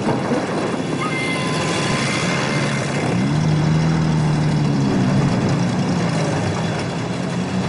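Heavy military trucks driving past, their engines running under a steady noisy rumble. One engine's note swells and bends in pitch as it passes, about halfway through.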